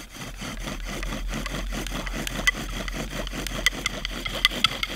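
Bow drill spinning a wooden spindle in a wooden hearth board, the bow sawing back and forth in a steady, fast rubbing rhythm with sharp squeaks now and then. It is still the squeaky, dry sound of the early stage, not yet the dry binding that marks enough friction heat for an ember.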